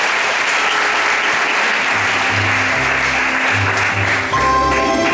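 Audience applauding over recorded music; the clapping thins out as a bass line comes in, and a new section of the music with clear held notes starts about four seconds in.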